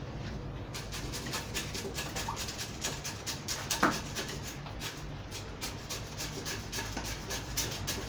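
Quick gritty scratching and crunching, several strokes a second, of granular bonsai substrate being worked in around a juniper's roots with a chopstick. There is one sharper knock about four seconds in.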